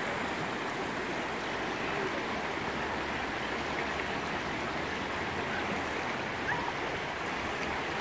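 Shallow mountain river rushing steadily over rocks and riffles.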